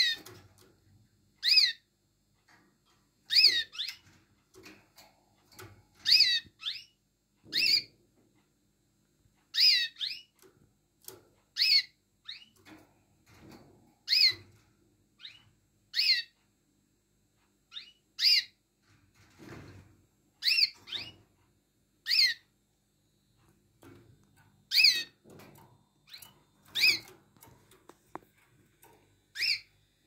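Canaries giving short, clear call notes, each a quick curving whistle, repeated every second or two and sometimes doubled.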